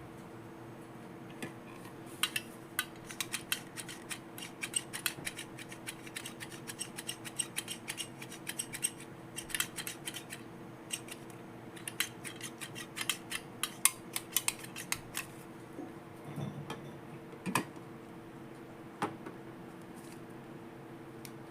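Quick runs of sharp clicks and light taps from small hard plastic toy pieces being handled and set down, thinning out to a few separate knocks near the end, over a faint steady hum.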